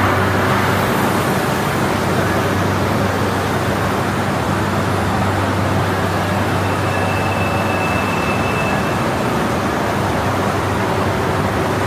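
Steady running noise of machine-shop machinery, with a low hum and a faint thin whine for a couple of seconds past the middle.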